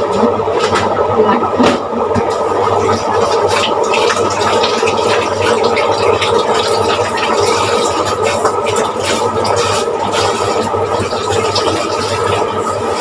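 Tap water running into a kitchen sink during dish washing, with scattered clinks, over a steady low hum.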